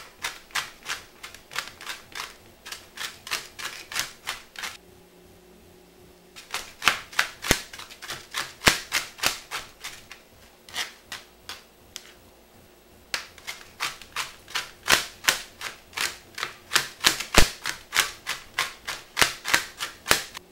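Chef's knife chopping jalapeño peppers on a plastic cutting board: quick, even knocks of the blade on the board, about three a second, in three runs with two short pauses.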